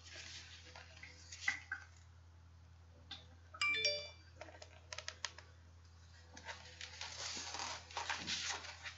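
Paper rustling and soft handling clicks as a hardcover picture book is held up, turned and lowered, with a brief high ringing tone about three and a half seconds in.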